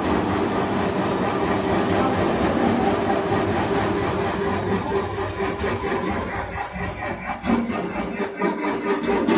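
Maize dehusking and shelling machine switched on and running empty: a steady mechanical drone with rattling, more uneven clatter near the end.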